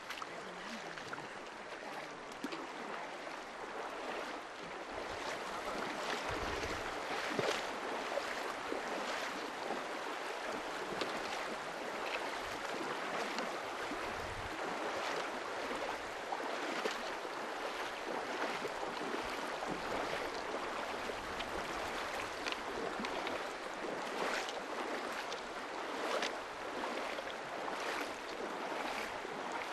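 Shallow stony mountain river rushing over rocks: a steady wash of water noise with many small splashes.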